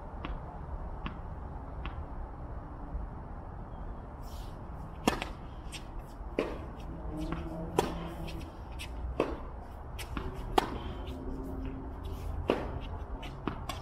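Tennis rally: sharp pops of rackets striking the ball, a few faint ones at first, then louder hits about every one and a half seconds from about five seconds in, over a low steady rumble.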